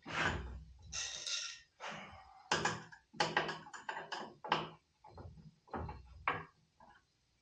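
Tools and hardware being handled on a workbench: a run of about a dozen irregular knocks and clatters, with a short rattle about a second in.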